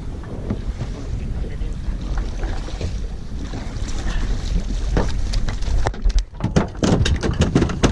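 Wind buffeting the microphone over water slapping against a small boat's hull as a fish is netted alongside. About six seconds in, a run of sharp knocks and thumps as the landing net with the fish is hauled over the gunwale onto the deck.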